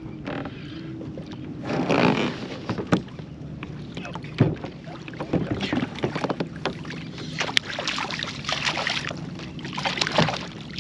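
Water splashing and sloshing around a fishing kayak, with many sharp knocks and clicks from the hull and gear.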